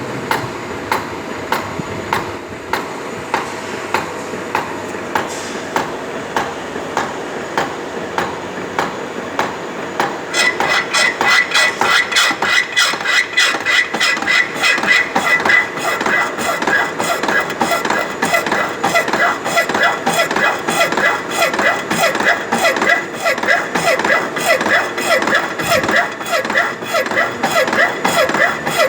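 Slotting machine running, its ram stroking up and down with a regular clack about twice a second. About ten seconds in, the strokes come faster and louder and a steady high ring joins them.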